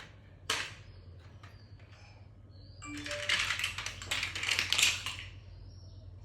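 Shape sorter toy pieces clattering and being handled: a single knock about half a second in, then a run of rapid clicks and rattles for about two seconds starting about three seconds in.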